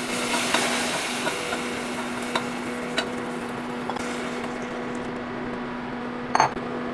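Whisk stirring a hot flour-and-margarine roux in a stainless steel saucepan as beef broth is poured in: a sizzling hiss that dies down after a few seconds, with a few sharp taps of the whisk against the pan, the loudest near the end. A steady low hum runs underneath.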